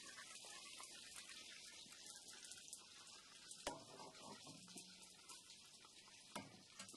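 Faint steady hiss with light crackling from hot oil frying in the cast-iron kazan, and two light knocks, about three and a half and six and a half seconds in, as the plate of chicken is set down on the table and the metal skimmer is laid on it.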